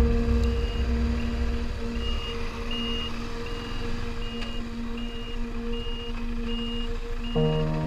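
Vehicle reversing alarm beeping steadily, a short high beep about four times every three seconds, over low engine and traffic rumble with a steady hum. Near the end a deeper engine tone joins in.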